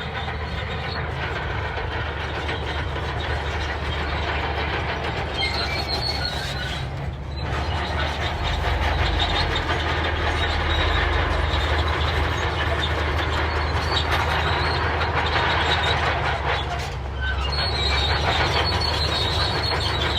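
Crawler bulldozer moving under power: the diesel engine drones steadily under the clanking rattle of its steel tracks, with high squeals from the track links twice.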